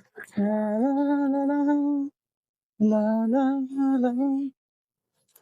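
A person's voice singing two held, slowly stepping phrases, the second with quicker wavers in pitch.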